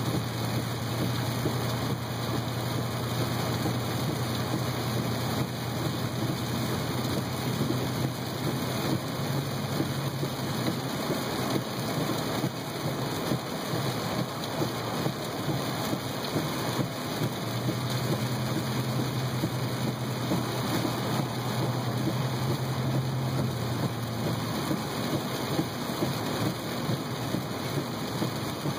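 Heavy rain pelting a car's roof and windshield, heard from inside the cabin as a dense, steady hiss, over a low hum of the car's engine and tyres that drops out for a few seconds mid-way.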